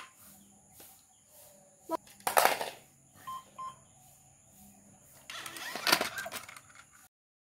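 Toy robot puppy giving two short, quick electronic beeps as its head is touched. Before and after them come bumps and rustles from handling; the loudest is a short knock-and-rustle just before the beeps.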